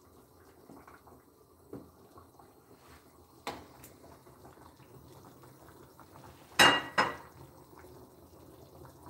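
Wooden spoon stirring and knocking in an aluminium soup pot, then two loud metallic clanks close together about six and a half seconds in as the pot is handled on the stove.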